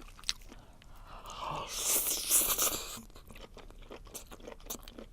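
Close-miked mukbang eating: a loud crunching bite about one to three seconds in, followed by rapid, sticky mouth clicks of chewing.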